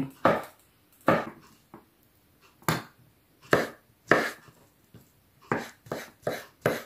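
Kitchen knife chopping carrot on a wooden cutting board: single sharp knocks at uneven gaps, quickening to about three a second near the end.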